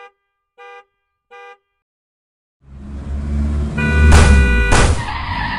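Dubbed car sound effects: three short horn honks about 0.7 s apart, then after a pause a car engine rumble that swells in, with a longer horn blast and two brief rushing bursts about four seconds in.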